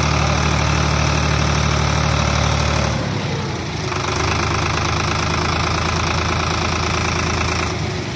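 Sonalika DI-750 tractor's diesel engine running steadily while it works the hydraulic tipper that raises the trailer bed. About three seconds in the engine note drops and changes, then holds steady again.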